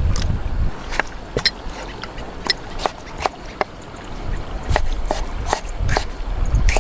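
Water trickling and splashing, with irregular sharp drips and plops over a steady low rumble.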